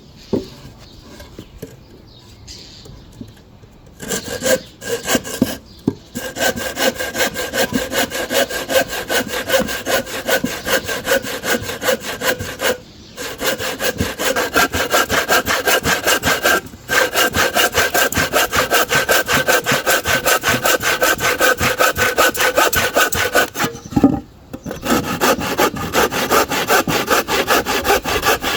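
Hand saw cutting through a wooden plank in quick, even back-and-forth strokes. It begins about four seconds in and breaks off briefly three times.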